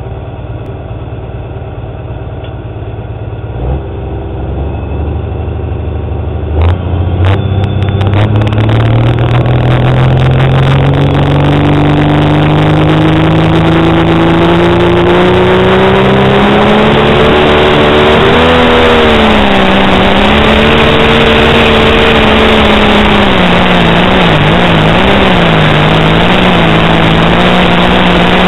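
Pro Stock pulling tractor's turbocharged diesel engine, heard from on board. It runs steadily at first, with a couple of knocks. From about seven seconds in the revs climb steadily for some ten seconds, then the engine runs hard under full load with the revs dipping and recovering, pouring black smoke.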